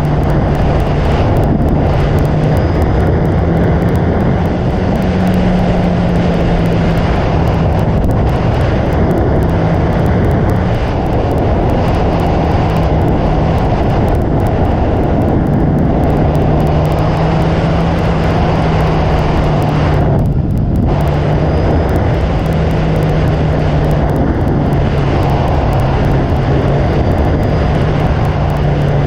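Motorcycle engine running steadily at cruising speed, heard up close from the bike with wind rushing past. The engine note holds nearly level throughout, with only slight shifts in pitch.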